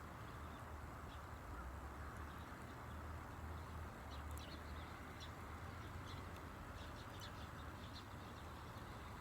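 Campfire crackling: small, irregular pops and snaps from burning wood over a low, steady background rumble.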